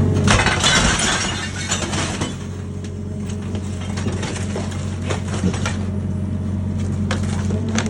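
Excavator engine running steadily while a porcelain toilet cracks and crunches under the bucket: a burst of crushing about half a second in, then scattered snaps and clinks of breaking ceramic.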